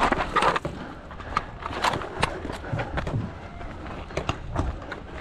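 Scattered sharp pops of paintball markers firing during play, irregular and at varying loudness.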